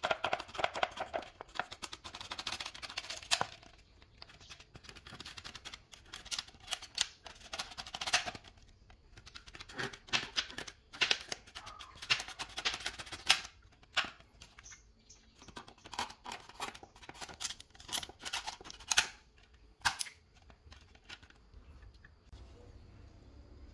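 A utility knife's blade cutting through a thin clear plastic bottle, in bursts of crackling clicks and scrapes, stopping near the end.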